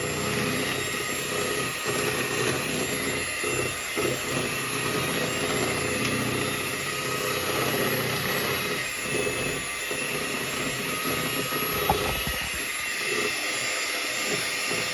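Electric mixer running steadily, beating cake batter of yellow cake mix, eggs and oil in a bowl, with one brief knock about twelve seconds in.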